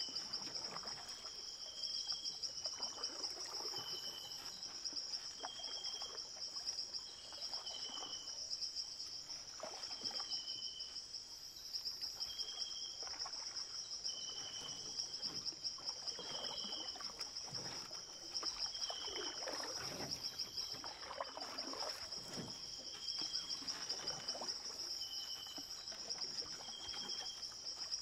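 Library swamp ambience: a steady, high, pulsing insect trill, with a short chirping call repeating about every second and a half, over irregular trickling water.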